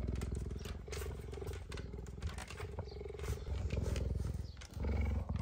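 Cheetah purring at close range: a continuous, low rattling purr that swells and fades with each breath, with a brief break near the end.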